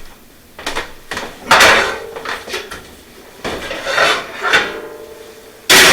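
Clatter of a baking dish going into an oven: several separate knocks and scrapes, some with a short metallic ring, and the loudest bang near the end.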